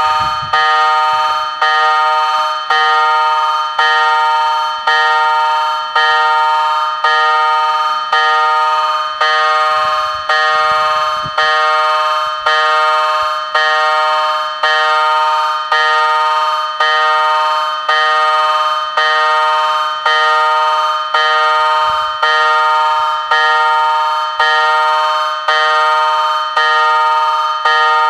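Level crossing warning bell ringing steadily, struck about once a second, each stroke ringing out before the next: the crossing's warning that a train is approaching.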